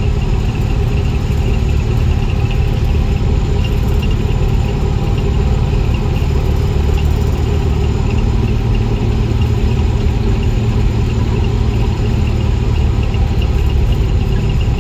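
Car engine and road noise at a steady cruise, heard from inside the cabin, with a deep low drone that stays even throughout.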